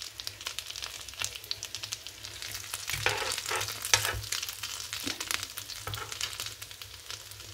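Macaroni-and-chicken triangles shallow-frying in oil, a steady crackling sizzle. A metal slotted spatula and spoon scrape and knock against the pan a few times, most around three to four seconds in, as the browned triangles are lifted.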